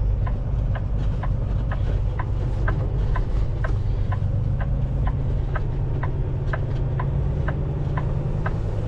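Turn-signal indicator ticking steadily, about two ticks a second, over the low drone of the vehicle's engine heard from inside the cab.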